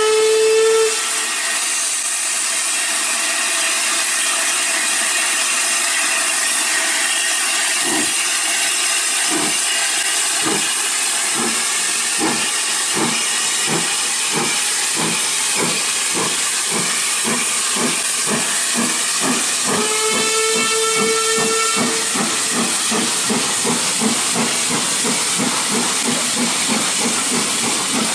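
Austerity 0-6-0 saddle tank steam locomotive pulling away: a short whistle at the start, then steady steam hiss. About eight seconds in its exhaust chuffs begin slowly and quicken to two or three beats a second as it gathers speed, with a second whistle blast of about two seconds near the twenty-second mark.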